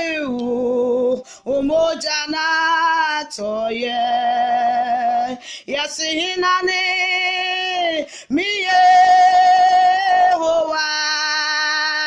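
A woman singing a worship song unaccompanied. Her solo voice holds long, drawn-out notes in short phrases of about two seconds each, with brief breaths between them. The fullest phrase comes a little past the middle.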